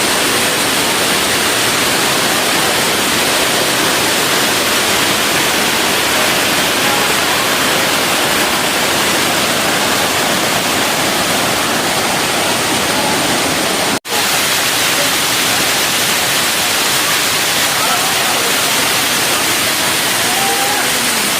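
Waterfall rushing steadily and loudly, an even wash of falling water. It breaks off for an instant about fourteen seconds in.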